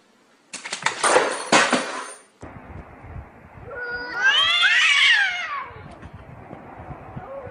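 A short burst of rapid clattering, then a cat's loud, wavering yowl that rises and falls, typical of a cat squaring up to another cat. A lower, steadier cat call starts near the end.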